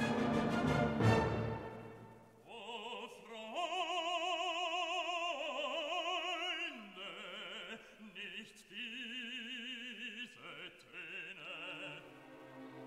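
Classical music with opera singing: a full orchestral chord fades out about two seconds in, then a voice sings long held notes with wide vibrato.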